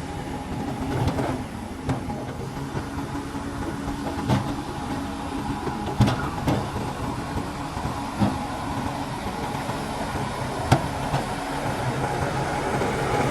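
Shantui DH17 C2 crawler bulldozer's diesel engine running steadily, with sharp knocks every second or two from the working machine.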